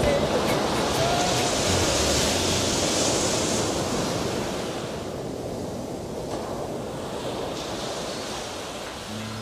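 Ocean surf from a sea-sounds relaxation recording: a wave breaks and washes in over the first few seconds, then recedes, and a second, smaller wash comes in near the end.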